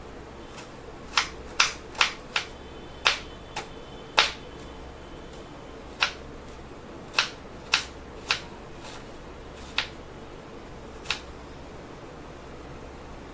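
Kitchen knife chopping an onion on a wooden cutting board: about a dozen sharp, irregular knocks of the blade against the board, quickest in the first four seconds, then sparser, with the last one near the end.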